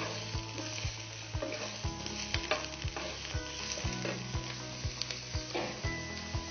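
Boiled green jackfruit pieces sizzling steadily as they fry in mustard oil in a frying pan, with a wooden spatula scraping and stirring them.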